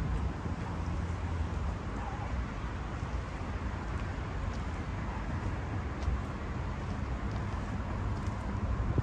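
Outdoor city ambience: a steady low rumble with a lighter hiss over it and a few faint ticks.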